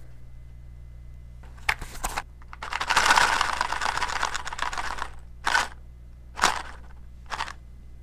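Cardboard matchbox handled close to a binaural microphone: two light clicks, then a dry rustling noise lasting about two seconds, followed by three shorter rustles about a second apart.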